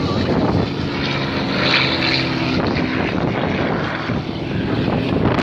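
Single-engine propeller aerobatic plane flying overhead: a steady drone of engine and propeller.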